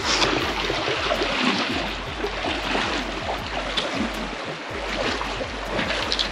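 Fast, shallow river water rushing and splashing around the legs of people wading across it, a steady, dense watery rush with uneven splashes from their steps.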